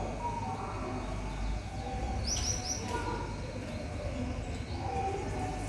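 Small birds chirping, with a quick run of three high notes about two and a half seconds in, over a steady background hum.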